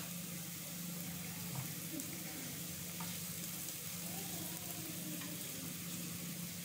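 Chopped onions sizzling in oil in a nonstick frying pan as ground cumin is stirred in with a plastic spatula, with a few light utensil taps. A steady low hum runs underneath.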